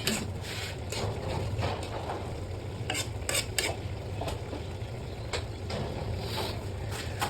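A utensil stirring and scraping in a cooking pan, with irregular short clinks and scrapes over light sizzling, and a steady low hum underneath.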